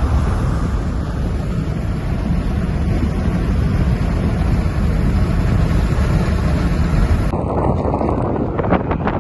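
Wind buffeting the microphone as a loud, steady low rumble. About seven seconds in the sound changes, the hiss dropping away and gusty flutters taking over.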